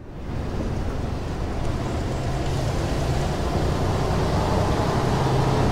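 Steady low rumble with a hiss over it, fading in over the first second and growing a little louder toward the end.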